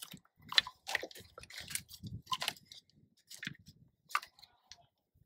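Irregular light clicks and crinkles of handling as the engine wiring harness in its corrugated plastic conduit is fed into place.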